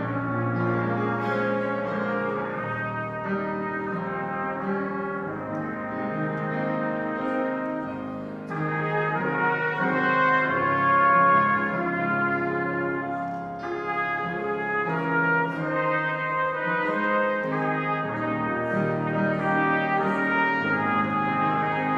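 Trumpet playing a melody of held notes with Yamaha grand piano accompaniment, briefly dipping about a third of the way in, then swelling to its loudest just after.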